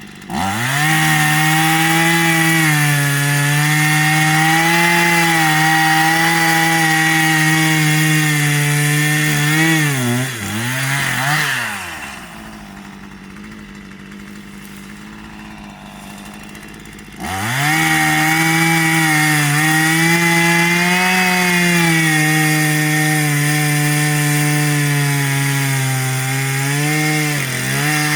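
Small Stihl two-stroke chainsaw held at full throttle and cutting wood, with a steady high engine note. About ten seconds in it wavers and drops back to idle. About five seconds later it is opened up again and cuts to the end, with a brief dip in speed near the end.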